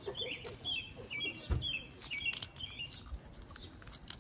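A small bird chirping a quick run of short, repeated calls that stops about two and a half seconds in. Under it, crackling clicks of boiled crawfish shells being snapped and peeled by hand, and a single thump about a second and a half in.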